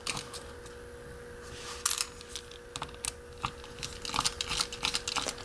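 Small screwdriver clicking and scraping against a brass mortise lock cylinder as the cylinder is taken apart. There is a sharper metallic click about two seconds in and a run of quick clicks near the end.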